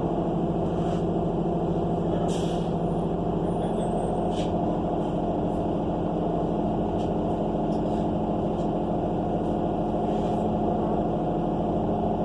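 Cummins Westport ISL G natural-gas engine of an ENC EZ Rider II transit bus running steadily, heard from inside the cabin. Short high-pitched bursts about two and four and a half seconds in, of the kind an air brake release makes.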